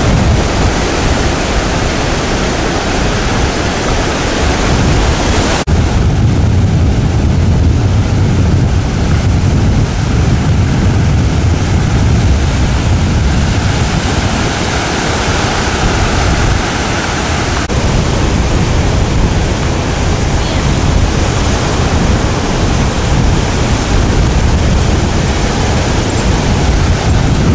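Ocean surf washing onto the beach, a steady rushing noise, with wind buffeting the microphone in a low rumble.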